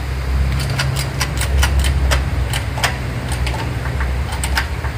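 Sharp metallic clicks and taps, irregular and sometimes in quick runs, from a motorcycle alloy wheel being handled in a homemade rim-straightening press, over a steady low hum.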